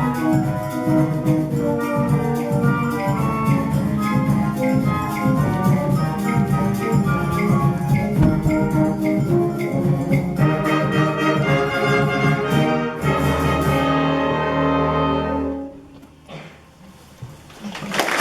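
A concert band of winds, brass and percussion playing the closing bars of a piece. It ends on a held full-band chord with a strong bass that cuts off about 16 seconds in, followed by a short quiet pause.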